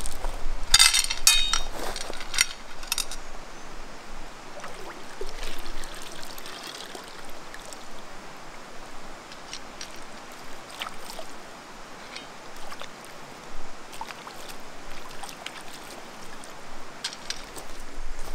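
Small stones clicking against one another and a pan as they are handled and dropped in, a quick cluster of clicks in the first few seconds and scattered single clicks after, over the steady rush of a stream.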